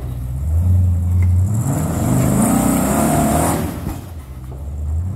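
Rock-crawling Jeep's engine running at low revs, then revving up hard for about two seconds in the middle as it climbs over boulders, before dropping back to a low drone.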